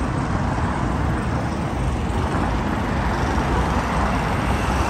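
Steady road traffic noise, an even rumble with no single event standing out.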